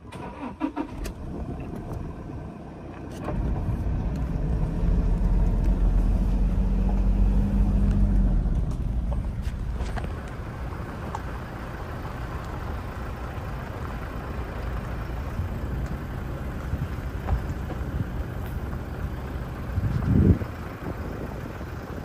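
Motor vehicle engine running on a drive, louder from about 3 to 9 seconds, then settling to a lower, steady level. A short rising whine comes near the end.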